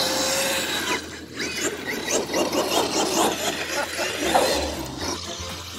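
Traxxas X-Maxx RC monster truck's electric motor whining, rising and falling in pitch over and over as it is revved through donuts on dry grass.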